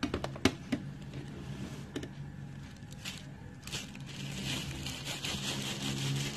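A few sharp clicks and knocks in the first second and one about two seconds in. Then, from about four seconds in, a plastic bag crinkles and rustles as crushed chocolate cookies are tipped from it into a glass bowl of whipped ice-cream base.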